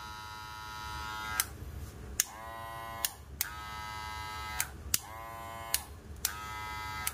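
Two cordless hair clippers, a Walux 8102C and a Wahl Magic Clip Cordless, switched on and off in turns so their motor speeds can be compared. Each run buzzes for about a second, with a click of the switch at every start and stop; the Walux is rated 6500 RPM and the Wahl 6000 RPM.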